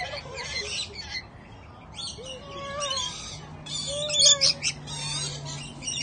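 Rainbow lorikeets screeching and chattering, short high-pitched calls in quick clusters, loudest a little past the middle.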